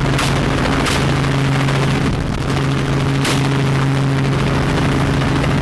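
Rifle shots fired from a helicopter's open door over the helicopter's steady drone: two shots close together near the start and a third about two and a half seconds later.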